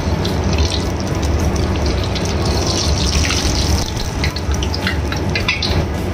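Rice vermicelli deep-frying in hot oil in a wok: a continuous sizzle with many sharp crackles and pops, while the puffed noodles are lifted out with a wire mesh strainer. A steady low hum runs underneath.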